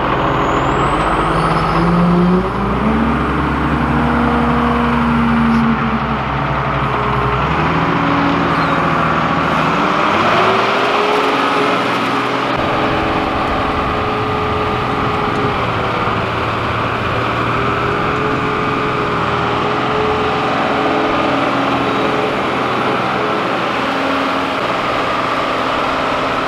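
Dresser wheel loader's diesel engine pulling away, its pitch rising over the first several seconds as it speeds up, then running steadily as the machine drives along.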